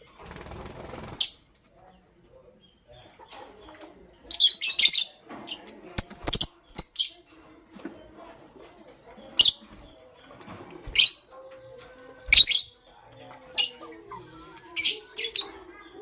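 Lovebirds giving short, sharp, high-pitched chirps, about nine scattered irregularly with some in quick pairs, over faint low chatter. A brief rustling noise fills roughly the first second.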